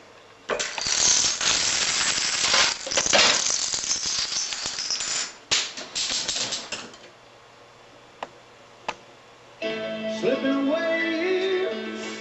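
Dominoes and other light objects toppling in a rapid run of small clattering knocks lasting several seconds, then two single clicks. A CD player then starts playing music with singing, switched on at the end of the chain reaction.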